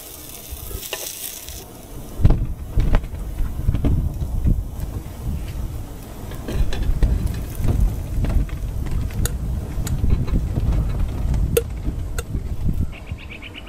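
A utensil stirring and scraping in a small metal saucepan on a portable gas stove, with an irregular low rumble and a few sharp taps on the pot. Bacon sizzles on a griddle for the first two seconds, and a rapid high rattling starts near the end.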